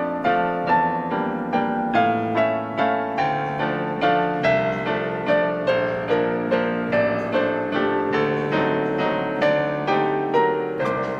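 Solo piano playing a continuous melody of struck notes over held bass notes in the left hand.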